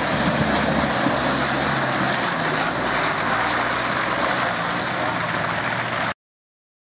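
Toyota Land Cruiser 80 series engine running at low revs as the truck crawls past through wet mud, with a steady rushing noise of tyres and mud over it. The engine note shifts slightly about halfway through, and the sound cuts off abruptly about six seconds in.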